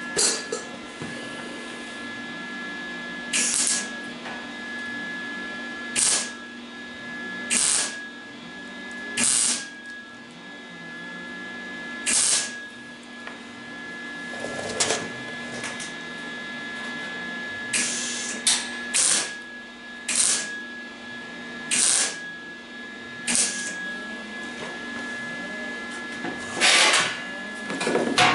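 MIG welder tack-welding cracks in the thin sheet steel of a 1974 MGB front valance, set turned down for the thin metal: about fifteen short bursts of arc, each under half a second, one every second or two, over a steady hum.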